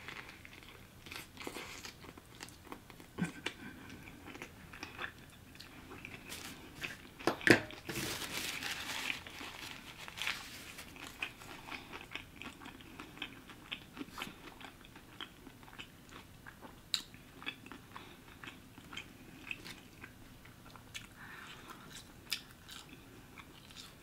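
Close-miked eating: biting and chewing a cheeseburger topped with spicy pickles, with small wet mouth clicks and crunches throughout. The loudest crunch comes about seven seconds in.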